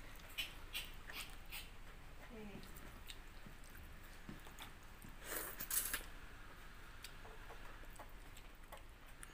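Quiet sounds of eating by hand from steel plates: fingers working rice and curry, chewing, and a few light clicks. A short falling call comes about two and a half seconds in, and a louder noisy burst about five and a half seconds in.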